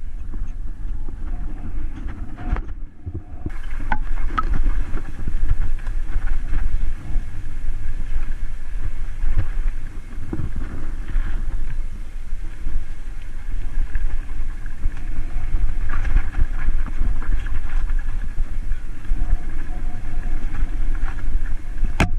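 Mountain bike ridden down a dirt forest singletrack: a steady low rumble of tyres on dirt and wind buffeting the camera microphone, with frequent knocks and rattles from the bike over bumps.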